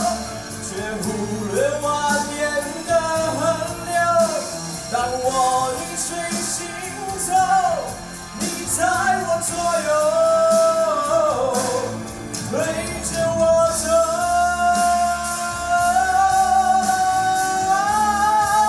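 A solo voice singing a slow pop song over instrumental accompaniment, holding long notes that waver slightly.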